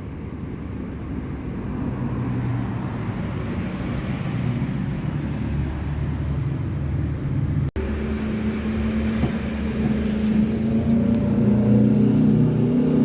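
A road vehicle's engine running, with a steady rumble and low hum. A brief dropout about eight seconds in, after which the engine hum is louder and steadier.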